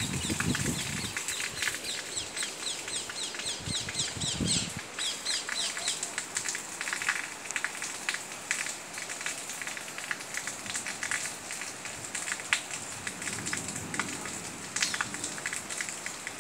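Rainwater dripping and pattering steadily just after a heavy downpour, in many small ticks. For the first five seconds or so a bird gives a rapid, repeated series of high chirps.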